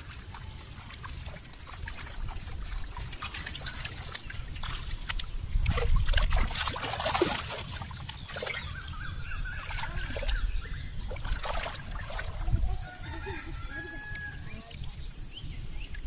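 Hands splashing and grabbing in shallow muddy water while catching fish, loudest about six to eight seconds in. A rooster crows and chickens cluck in the background in the second half.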